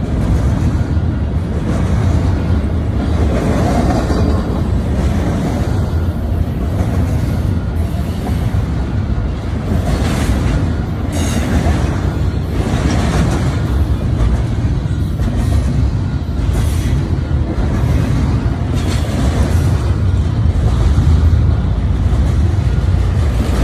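Double-stack intermodal freight train passing close by: a steady rumble of steel wheels on rail, with repeated clacks as the cars roll over the track.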